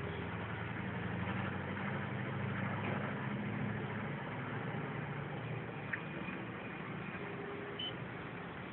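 Road traffic in the streets below: a steady low rumble of car and bus engines, swelling for a few seconds near the start, with a short high tone near the end.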